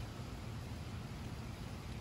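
Steady outdoor background noise: an even hiss over an uneven low rumble.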